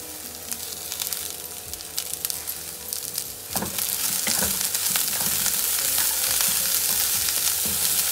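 Chopped onion, green beans and capsicum sizzling in hot oil in a kadai, with scattered crackles. About three and a half seconds in, a wooden spatula starts stirring in grated carrot and the sizzle gets louder and denser.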